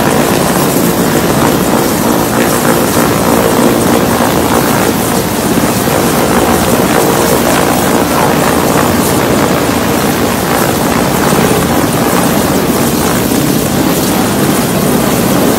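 Mi-17-series military transport helicopter hovering low overhead, its rotors and turbine engines making a loud, steady noise.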